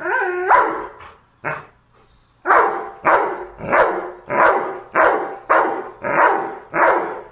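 A dog gives a short whine, then barks eight times at an even pace, about one bark every 0.6 seconds. The dog is barking out a count in answer to a ten-euro note held up to it.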